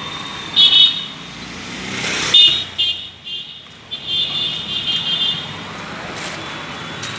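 Worn brake pads on a Mercedes C220 squealing in short, repeated high-pitched bursts over the car's running noise. The pads are worn down, which the mechanic gives as the cause of the noise from the rear.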